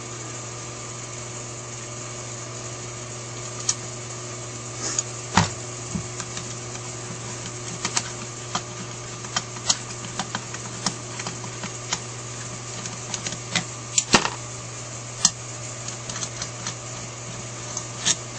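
Irregular light clicks and taps of metal Holley 4000 carburetor parts being handled and worked into place as a part is reseated. A steady low background hum runs beneath.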